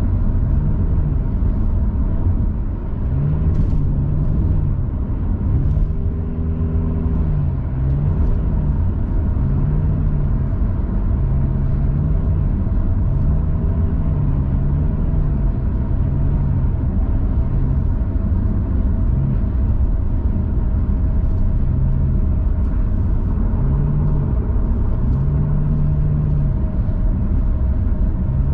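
Steady road and engine rumble of a car cruising on a highway, heard from inside the cabin, with a low hum that swells and fades every second or two.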